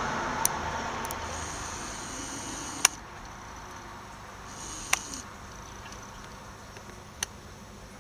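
A road vehicle passing, its noise fading away over the first three seconds, then quiet background with four short sharp clicks spaced a couple of seconds apart.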